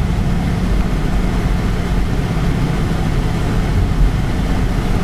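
Car cabin noise while driving: a steady low rumble of engine and road.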